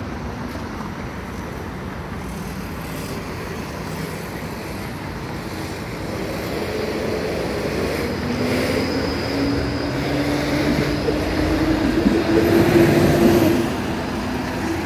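TTC streetcar in motion, a steady rumble of wheels on rail; from about halfway a motor whine rises slowly in pitch as the noise grows louder, then the noise drops suddenly near the end.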